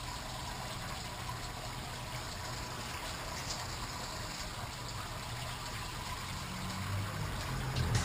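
Steady trickle of water running through a black granite water feature, over a low rumble. Music begins to fade in near the end.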